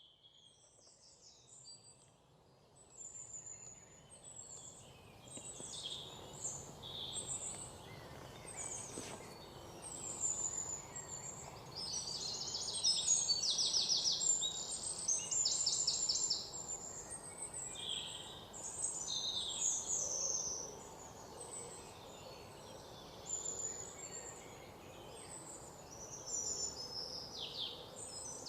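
Several birds chirping and calling in a morning forest chorus, with short whistled notes and rapid trilled phrases overlapping, over a faint steady background hiss. The sound fades in over the first few seconds.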